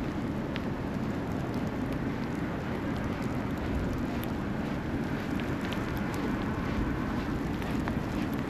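Steady city street ambience in a snowstorm: a low continuous rumble of traffic with scattered faint ticks.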